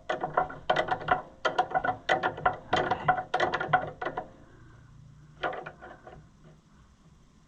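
Socket ratchet clicking in quick runs of strokes as a bolt is run down, stopping about four seconds in, with one short burst of clicks a little later.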